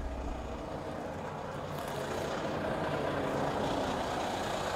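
A heavy goods vehicle's diesel engine running steadily.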